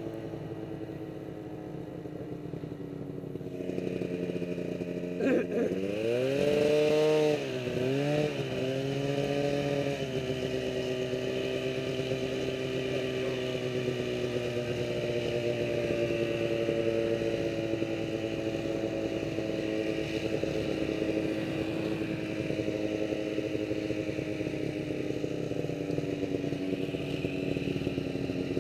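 Snowmobile engine running under way, quieter for the first few seconds, then its pitch rising and dipping several times as the throttle is worked, before settling into a steady cruising note.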